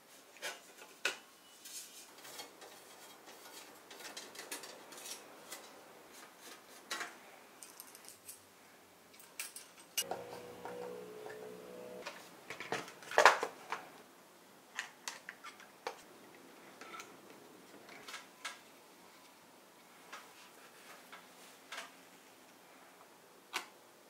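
Scattered light clicks and taps of hard plastic and metal parts being handled on a mini-ITX motherboard as a CPU is fitted into its socket, with a sharper cluster of clicks about 13 seconds in.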